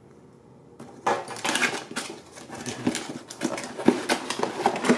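Cardboard box being pulled open by hand, its flaps and inner cardboard packing scraping and rustling with scattered knocks and taps, starting about a second in.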